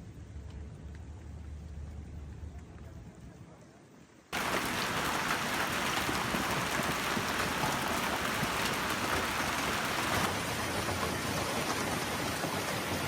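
A low, faint hum fades over the first four seconds. Then, after a sudden cut, a hailstorm pelts down hard and steadily, a dense even patter over every surface.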